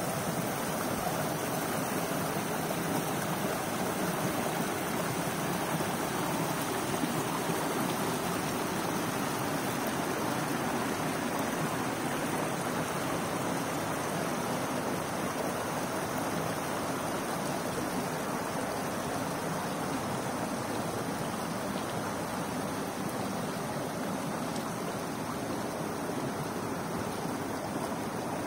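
Small mountain creek running over mossy rocks and stones: a steady, even rush and babble of water, a little softer near the end.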